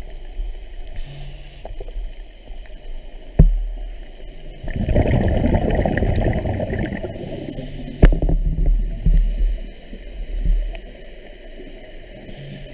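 Underwater sound of a scuba diver's breathing: a long gurgling rush of exhaled bubbles from about five seconds in to about eight seconds. Low rumble and a few sharp knocks run around it.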